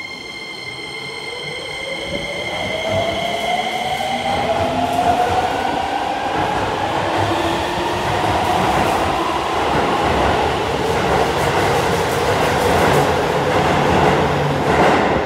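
Chiba New Town Railway 9200 series electric train accelerating away from an underground platform. The inverter-driven traction motors whine, rising in pitch as it gathers speed, and the rumble of wheels on rail grows louder as the cars pass.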